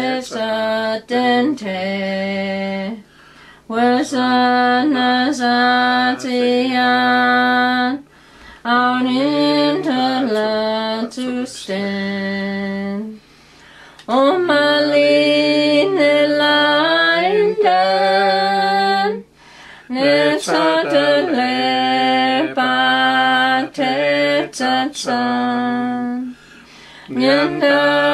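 Unaccompanied hymn singing in the Dakelh (Carrier) language, led by a woman's voice. It comes in phrases of four to six seconds with brief pauses between them.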